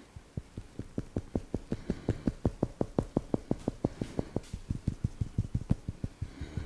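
Hands striking the body rhythmically in a percussive Indian massage, about five slaps a second. A little past halfway the strokes turn duller and lower.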